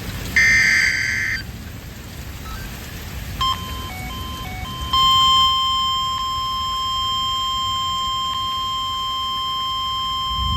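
NOAA Weather Radio alert signalling the start of a warning: a one-second screeching burst of the SAME digital alert header near the start, a few short beeps about three and a half seconds in, then from about five seconds in the steady single-pitch warning alarm tone.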